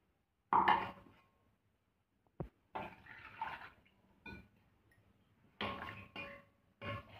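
Water sloshing and splashing in a stainless steel mixer-grinder jar as it is rinsed out by hand, the last of the ground herb paste washed into the pot. There is a loud clank of steel on steel about half a second in and a short sharp knock a couple of seconds later.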